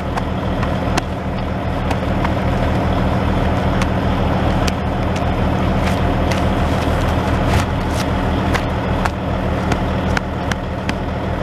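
Truck engine idling steadily, with scattered small crinkles and clicks of a vinyl tarp as work boots press down on a freshly glued patch.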